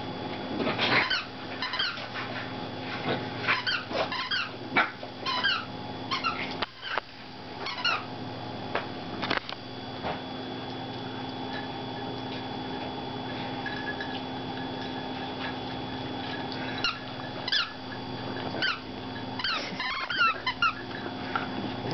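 Puppies squealing and yipping as they play-fight, in quick runs of short, high, sliding squeaks. The squeals cluster in the first half, ease off for several seconds in the middle, and pick up again near the end.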